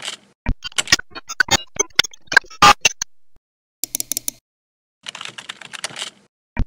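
Keyboard-typing sound effect for on-screen text: sharp separate clicks and knocks in the first three seconds, then two short runs of rapid typing clicks, the second about a second long.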